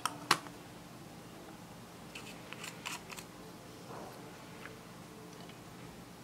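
Small plastic clicks of makeup tube caps: a loud snap just after the start as a pen is capped, then a run of small clicks two to three seconds in as a liquid lipstick tube is opened, and a soft knock a little later.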